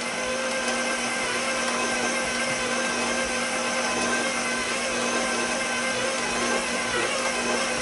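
KitchenAid Professional stand mixer running steadily on speed 2, its dough hook kneading pizza dough: a steady motor hum and whine.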